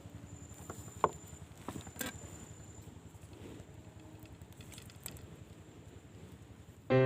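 Steady low rumbling background noise with a few sharp knocks and clicks, the sharpest about a second in, and a faint high steady whine.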